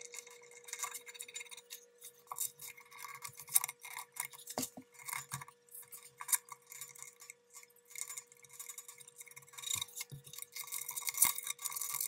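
Aluminium bed-levelling knobs being threaded by hand onto the bed screws under an Ender 3 Pro's print bed: irregular small metallic clicks, ticks and scrapes, with a couple of sharper knocks.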